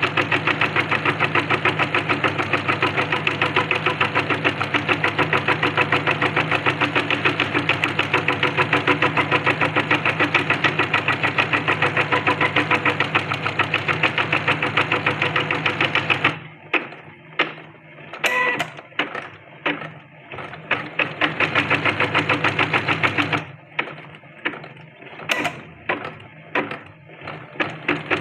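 Janome embroidery sewing machine stitching at a fast, even rate. After about sixteen seconds it breaks into short stop-start spurts, with one longer steady run in the middle, as it works the embroidery design.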